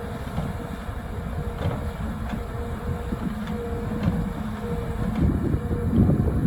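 Volvo EC300E excavator's diesel engine and hydraulics running with a steady low rumble, with a few faint knocks.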